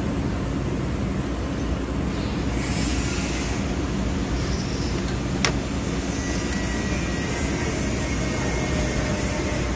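Steady low machine drone, with a single sharp click about five and a half seconds in.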